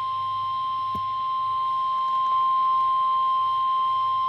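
NOAA Weather Radio 1050 Hz warning alarm tone: a single steady, unbroken high beep from a weather radio receiver. It is being sounded as the station's weekly test of the alarm that switches on tone-alert receivers.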